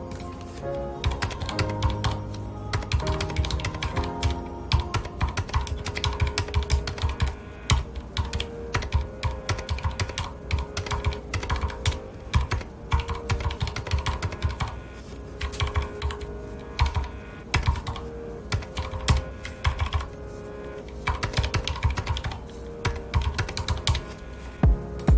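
Continuous typing on a mechanical keyboard with red linear switches, a fast, uneven run of key clicks over background music with held notes.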